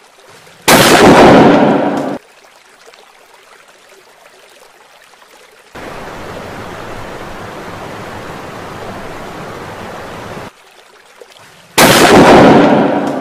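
Two loud sutli bomb firecracker blasts, one about a second in and one near the end, each dying away over a second or so. Between them, water rushes steadily over a weir for about five seconds.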